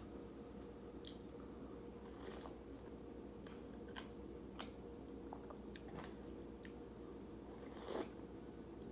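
Close-miked chewing and mouth sounds of someone eating, with scattered soft smacks and clicks, a slightly louder one about eight seconds in, over a steady low hum.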